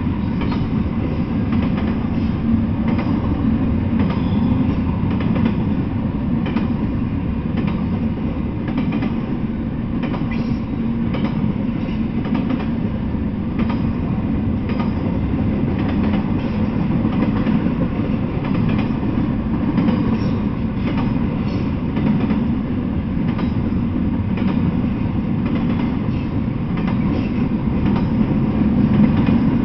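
Double-stack intermodal freight train rolling past: a steady low rumble of wheels and well cars on the rails, with faint scattered clicks of wheels over rail joints.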